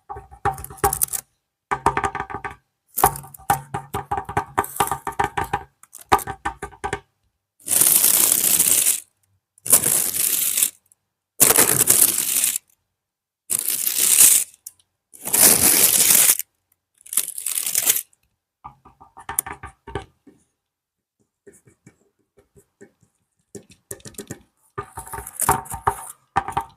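ASMR tapping and scratching: quick runs of taps on something that rings with a faint tone, then about six separate scratching strokes of about a second each, roughly two seconds apart, with more tapping near the end.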